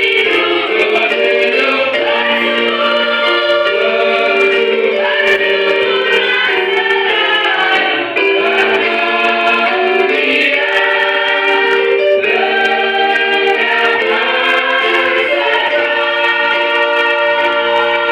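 Church choir singing a hymn in held chords of several voice parts.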